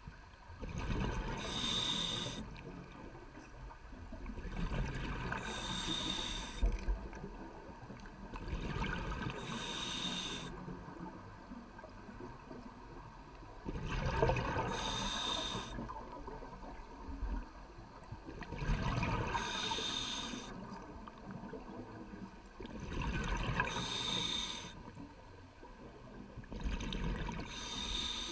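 Scuba diver breathing through a regulator underwater: about seven breaths, one every four seconds or so. Each is a hissing inhale with a thin whistle in it, followed by the low rumbling gurgle of exhaled bubbles.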